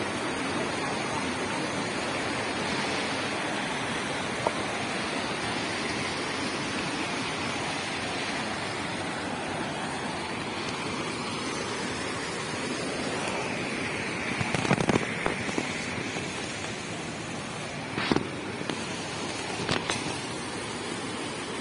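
Muddy, rain-swollen mountain stream rushing over rocks: a steady noise of flowing water. In the second half, a few sharp knocks cut through it.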